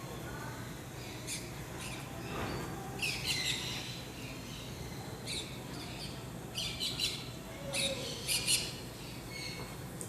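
Birds chirping and squawking in short, high calls every second or so, over a steady low hum.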